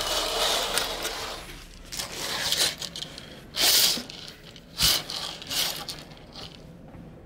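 Pleated fabric berth curtain rustling and scraping as it is pushed aside and brushed, in uneven bursts with two short, louder swishes a little past the middle, over a low steady hum.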